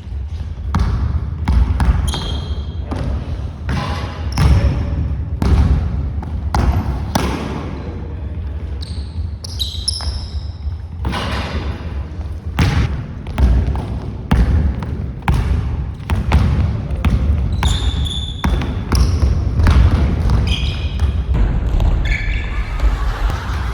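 Basketball bouncing repeatedly on a hard court floor during one-on-one play, with short high squeaks at intervals, as from sneakers on the floor.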